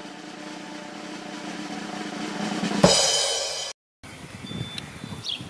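Intro music: a snare drum roll over a held chord swells louder and ends on a crash that rings for under a second, then cuts off abruptly. After a short silence comes quiet outdoor sound with a couple of short, high bird chirps.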